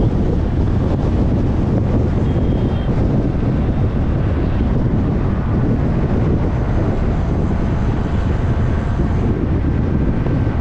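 Steady low rumble of wind buffeting the microphone, mixed with road and traffic noise from a vehicle driving at speed.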